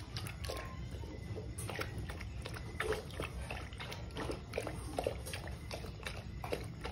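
A thirsty dog lapping water from a plastic bucket: an irregular run of quick wet laps, about two to three a second.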